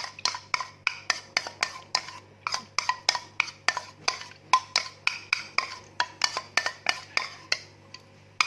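A spoon stirring honey into lime juice and dissolved salt, clinking against the side of its container about four times a second; the stirring stops near the end.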